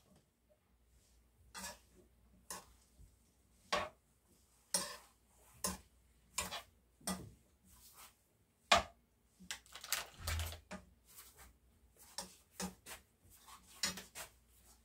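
A spoon clinking and scraping against a nonstick frying pan while stir-frying garlic stalks, in irregular short strokes roughly once a second.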